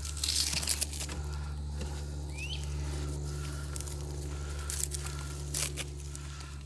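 Smouldering tinder bundle of dry pine needles and twigs in a fire pit, crackling and rustling in short spells as it heats toward flame, over a steady low hum.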